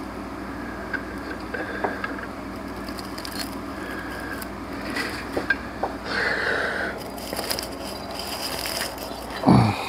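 Scattered clicks, knocks and scraping of hands and tools working a serpentine belt onto the engine's pulleys, with a longer rubbing scrape partway through. Near the end a short, loud sound falls sharply in pitch.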